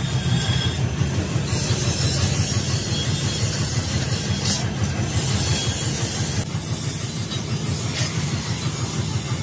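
Gas cutting torch running with a steady hissing roar as its flame is played on a steel pipe, over a steady low rumble; the hiss grows stronger about a second and a half in.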